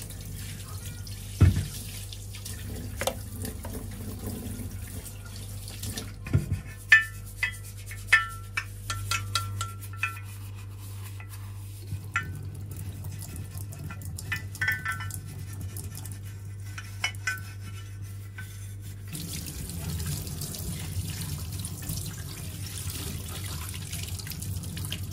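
Tap water running into a stainless steel sink while a glass light shade is rinsed and rubbed by hand, with a scatter of light glassy clinks in the middle as the glass knocks against itself and the sink. The water stream gets stronger about three-quarters of the way through.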